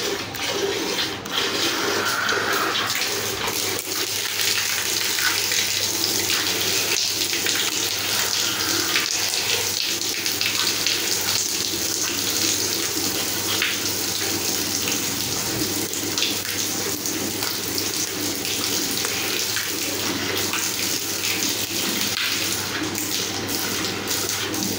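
Milk squirting from a cow's teats into a partly filled steel bucket during hand milking: a steady run of quick splashing squirts.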